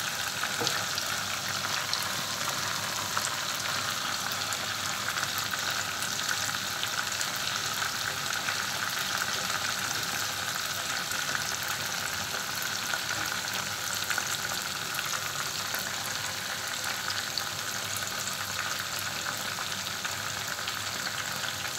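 Marinated chicken pieces deep-frying in hot oil: a steady sizzle thick with small crackling pops as the pieces fry through.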